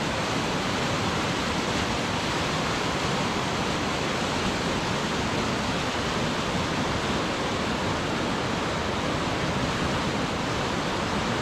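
Baspa River rapids: fast, cold snowmelt water rushing over rocks in a steady, unbroken rush of white water.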